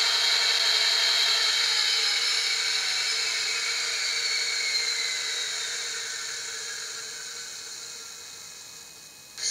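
Sound decoder in a Bachmann Class 57 OO-gauge model locomotive playing a diesel engine shutting down: the engine's high whine slides down in pitch and fades away over several seconds.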